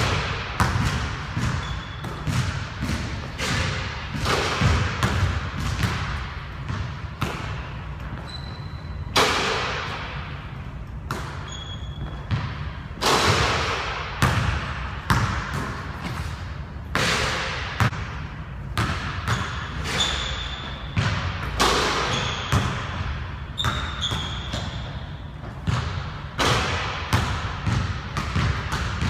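A basketball bouncing on a hardwood gym floor: irregular thuds, each ringing on in the echo of the large hall, with a few short high squeaks between them.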